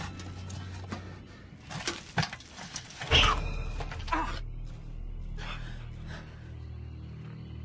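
Horror-film score: a low steady drone with several sharp hits, the loudest about three seconds in, after which a deep low rumble sets in.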